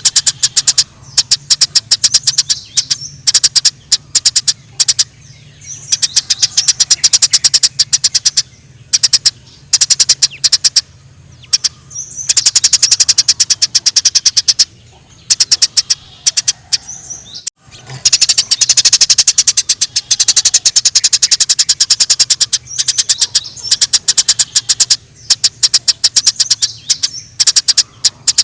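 Eurasian tree sparrows chattering in fast, excited bursts of chirps, the agitated calls of sparrows squabbling. The bursts come and go every few seconds, over a steady low hum, with a brief break about two-thirds of the way through.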